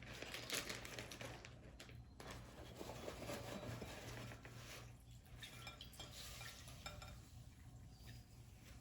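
Faint kitchen handling noises: paper towel rustling and light knocks against a mixing bowl as thawed shredded zucchini is wrapped and squeezed to drain its water.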